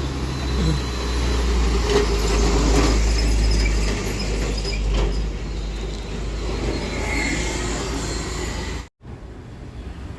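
Busy road traffic passing close by, with a heavy low rumble of a passing vehicle loudest in the first few seconds, then lighter traffic. The sound cuts out completely for a moment about nine seconds in.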